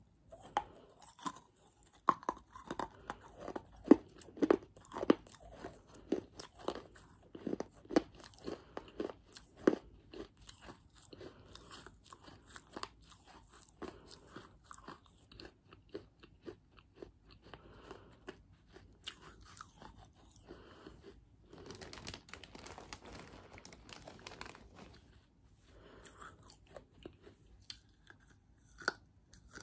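Pieces of baked clay being crunched and chewed right at a close microphone. The crunches are sharp, rapid and loudest in the first ten seconds, then thin out into softer chewing, with a stretch of faint hissing noise a little past the middle.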